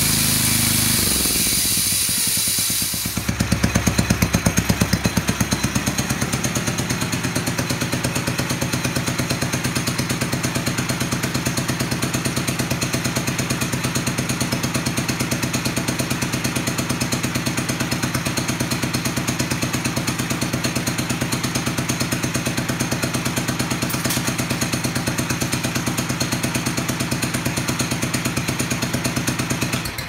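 A small sawmill's engine running steadily with an even, fast pulse. For the first three seconds it sounds brighter and hissier, then it settles into a steady run, and it dies away at the very end.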